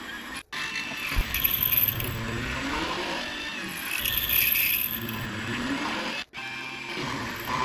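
Small benchtop milling machine cutting a pocket into a metal block with an end mill, the table fed by hand: the spindle motor whines and the cutter grinds and scrapes through the metal. The sound cuts out abruptly twice, about half a second in and again near the end.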